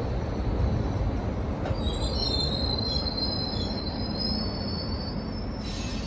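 Berlin U-Bahn train rolling slowly along the platform and coming to a stop: a low rumble of wheels on rail, with a high-pitched wheel squeal from about two seconds in, and a brief hiss near the end.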